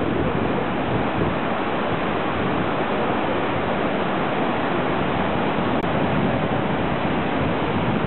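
Steady rush of surf breaking on a beach, with wind on the microphone.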